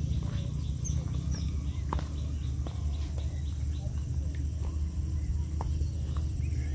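Outdoor field ambience: a steady low rumble with faint, scattered bird chirps and a thin, steady high insect buzz.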